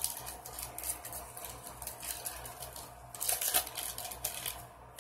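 Foil wrapper of a 2006 Bowman football card pack crinkling and tearing as hands open it, with a louder crackle about three seconds in.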